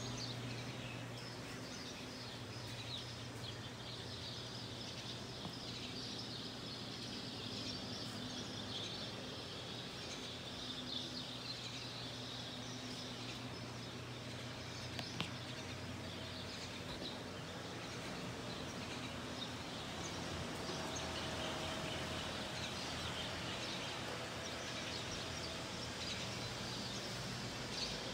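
Outdoor ambience of birds chirping, many short high chirps scattered throughout, over a steady low hum.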